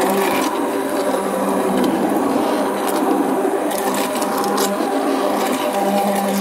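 Electric hand blender running steadily with a constant motor hum, its blade churning a pot of frothy liquid soap.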